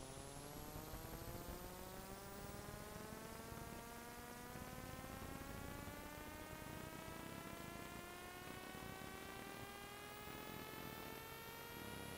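A faint, continuous electrical-sounding hum or whine made of several tones together, its pitch rising slowly and steadily throughout, over a light hiss.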